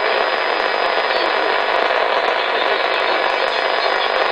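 Steady static hiss from an HR2510 ten-meter transceiver's speaker, with a faint steady high whine: the distant station's signal has dropped out while his quad beam points northwest, leaving only band noise.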